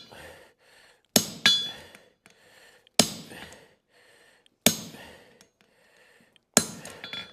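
Hammer blows on hot steel at the anvil, cutting a horseshoe heel's jar calk halfway through: about five sharp, ringing metal strikes at uneven intervals.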